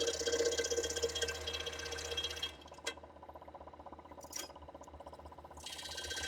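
Scroll saw running and cutting wood, a fast buzzing rattle from the reciprocating blade. About two and a half seconds in it drops to a quieter running hum with a single click, then the cutting noise builds back up near the end.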